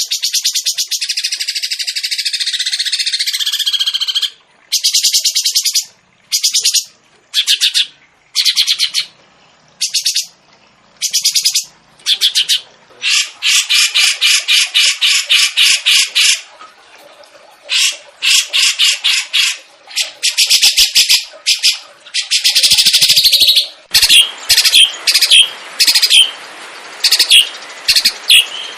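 Songbird song for tutoring caged birds: a continuous high warble for about four seconds, then a string of short, very rapid trills about a second long each with brief gaps, some running longer, and sharper separate notes near the end.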